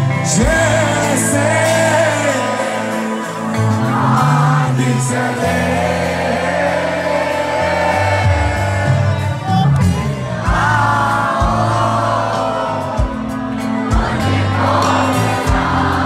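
Live rock band playing a song, with electric guitars, drums and a male lead singer, heard loud from within the audience, with crowd voices mixed in.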